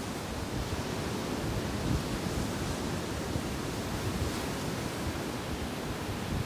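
Sea waves washing onto a beach in a steady surf, with wind buffeting the microphone in low, irregular rumbles.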